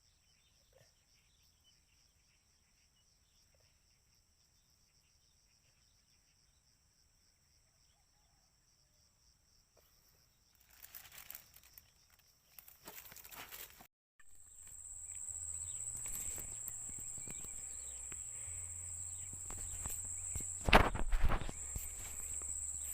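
Faint steady high insect trilling that grows louder partway through into a steady high-pitched cricket-like trill, with scattered rustling and a brief loud knock or rustle near the end.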